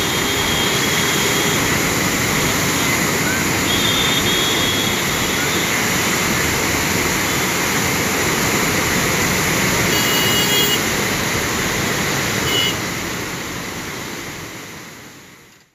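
Floodwater rushing through the opened gates of a river barrage and churning in the spillway below, a steady, loud roar of water that fades out in the last second or two.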